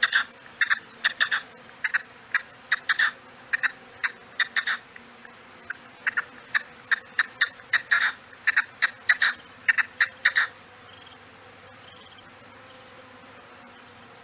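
Game bird of the partridge or grouse kind giving a rapid, irregular series of short, sharp call notes in clusters. The calls stop about ten seconds in, leaving faint background hiss.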